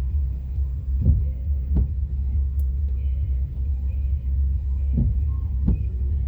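CN freight train cars rolling past, heard from inside a parked car: a steady low rumble with two pairs of short knocks from the wheels passing over the rail joints.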